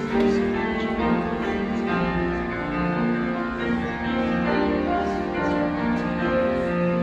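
Live classical concert music in a large auditorium: instruments playing sustained chords, with a piano among them.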